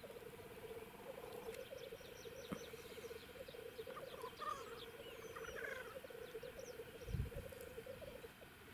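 Black grouse males bubbling on the lek: a continuous low, pulsing cooing that fades out near the end, with short higher bird chirps in the middle. A dull low thump comes about seven seconds in.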